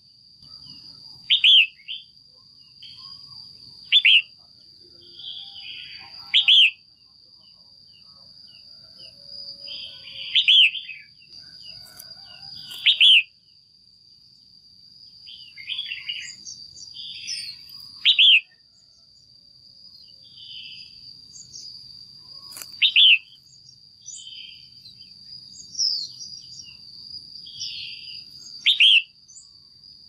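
Female red-whiskered bulbul calling: eight loud, short, sharp calls a few seconds apart, with softer warbling phrases between them. These are the calls keepers use to excite a male bulbul or to pair birds. A steady high thin whine runs underneath.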